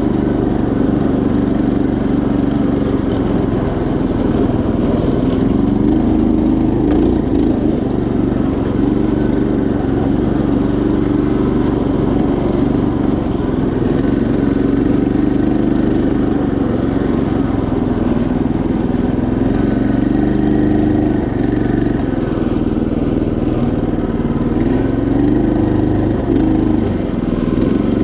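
Predator 212 single-cylinder engine on a riding mower, running under load as the mower drives along, its pitch rising and falling repeatedly with the throttle and load.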